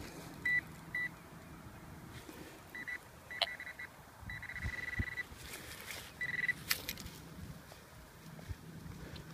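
Teknetics Omega 8000 metal detector giving short beeps at one steady pitch as the coil sweeps over a buried target, with one longer held tone in the middle; the signal is read as a pull tab lying deeper than usual. A couple of sharp clicks come between the beeps.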